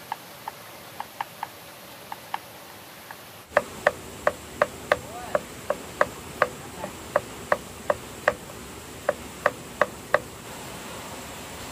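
A knife chopping on a cutting board in steady, sharp strokes about three a second, with a brief pause before the strokes stop about ten seconds in. A few lighter taps come before the steady chopping.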